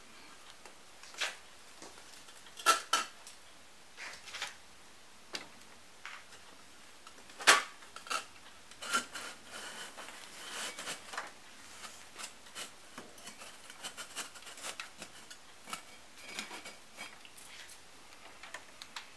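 Scattered clinks and knocks from handling a small electric glass furnace: its steel-framed brick lid being shut over the new crucible and a hand working in through the gathering port. Two sharper knocks stand out, about three and seven and a half seconds in, some clinks with a short ring.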